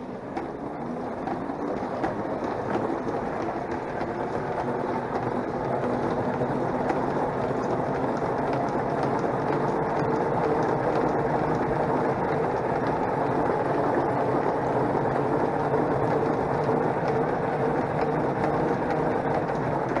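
Drum of a hand-turned, non-electric portable washing machine spinning steadily in one direction, with the wet shirts and water churning inside, to spin the water out of the wash. A steady rolling rush that grows louder over the first few seconds and then holds.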